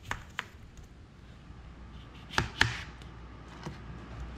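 A few sharp knocks and clicks of kitchen work over quiet room tone: two near the start and two more close together about two and a half seconds in.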